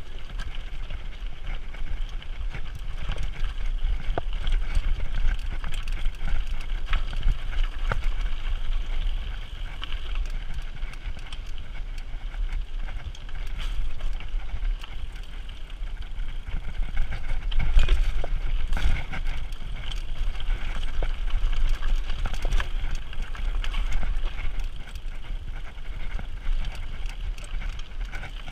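Mountain bike riding down a rocky dirt singletrack: tyres crunching over gravel and stones and the bike rattling with frequent sharp knocks, over a low rumble of wind on the camera microphone.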